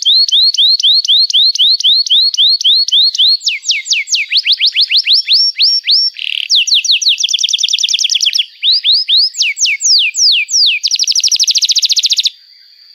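Domestic canary singing a long song of phrases built from repeated rising whistled notes, about four a second at first, then faster sweeps. It ends in a very fast trill that stops suddenly near the end, leaving a faint steady high tone.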